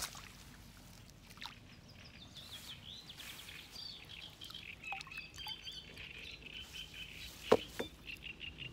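Birds chirping in quick series of short notes, with a sharp click about seven and a half seconds in.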